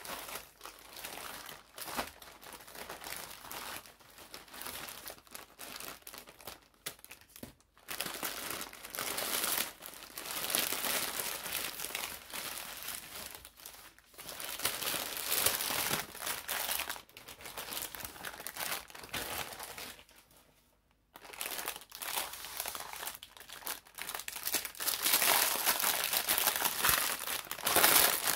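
Plastic packaging crinkling and rustling in the hands as it is unwrapped: a plastic mailer bag, bubble wrap and clear plastic bags. The noise comes in irregular handfuls, with a brief break about two-thirds of the way through.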